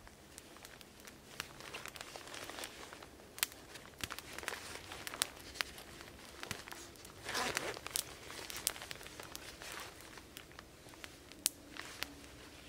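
Small kindling campfire crackling, with sharp pops scattered throughout. Sticks and shavings rustle and crunch as they are handled near the fire, loudest about seven and a half seconds in.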